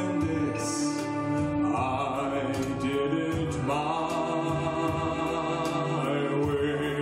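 A man singing into a handheld microphone over instrumental accompaniment, holding long notes that end with vibrato.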